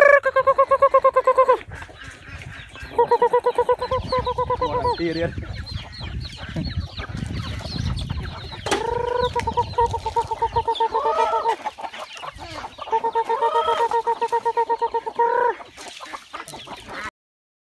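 Chickens calling: four long, even-pitched calls of two to three seconds each, each rapidly pulsing, with softer clucking between them. The sound cuts off suddenly near the end.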